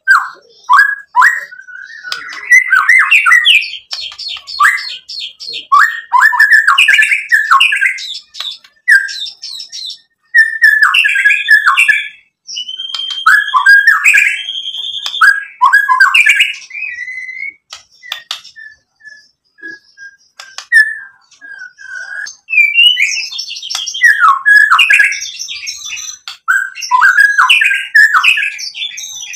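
A white-rumped shama sings a loud, varied song in short bursts of different phrases. Rich whistled notes that glide up and down are mixed with rapid chattering and clicking, and there are brief pauses between phrases. About two-thirds of the way through comes a quieter run of short, even notes.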